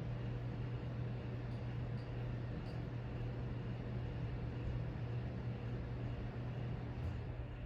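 Hunter 44-inch ceiling fan running steadily: a motor hum under the even rush of the spinning blades, with a few faint ticks. It runs smoothly, freshly balanced so it no longer wobbles.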